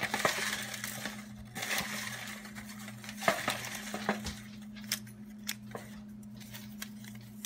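Folded paper slips rustling and crinkling as hands stir through them in a clear plastic tub, with scattered light clicks.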